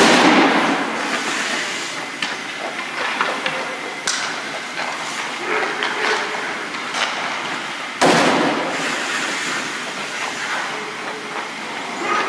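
Ice hockey shooting practice in an indoor rink: a sharp crack of a stick striking a puck at the start and another about eight seconds in, each echoing through the arena. Between them, skate blades scrape and sticks and pucks click on the ice.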